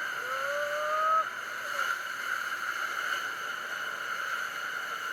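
Steady rushing noise of the Iguazu waterfalls, with one short rising call from a person's voice about a quarter second in.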